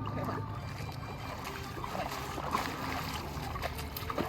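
Shallow water washing and trickling, with small splashes scattered through.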